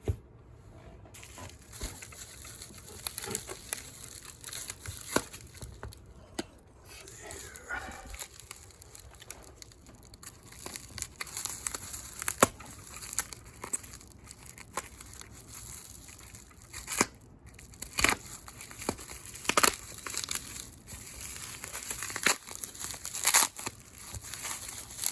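Paper packing, likely newspaper, being crumpled and torn open by hand, with irregular crinkling and sharp crackles.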